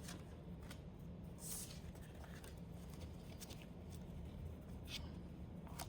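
Faint, scattered swishes and clicks of Pokémon trading cards being slid and flipped through by hand, over a low steady hum.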